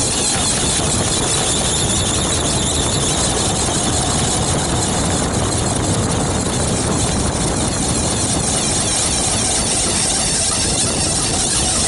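Lexus SC400 on the move, with a steady high wheel noise over loud road and wind noise. The noise is intermittent and worsening, and the owner doubts it is the wheel bearings since the wheel is stiff.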